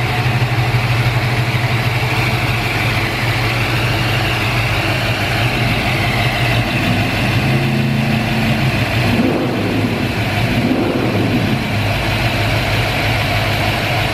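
A 1956 Chevrolet Corvette's V8 idling steadily, with a couple of brief rises and falls in engine speed past the middle.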